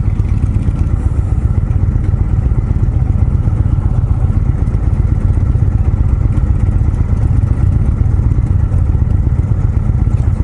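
2018 Indian Springfield's air-cooled V-twin engine running steadily as the motorcycle rides along, a continuous low rumble.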